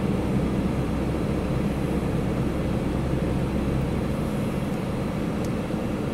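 A car driving slowly on a road, with a steady low engine hum and tyre noise. The hum eases off about two-thirds of the way through.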